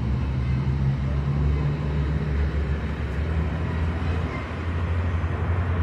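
A motor vehicle's engine running steadily: a low, even rumble.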